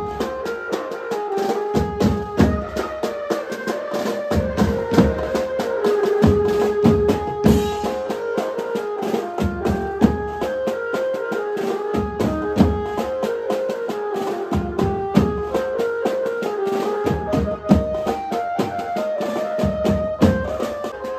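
Live banjo-party band music: a Yamaha PSR-E473 keyboard plays a melody over drums beating a steady rhythm.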